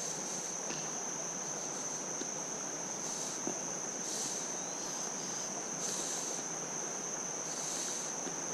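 A steady high-pitched insect buzz over the even rush of flowing creek water. The buzz swells louder about every second or two.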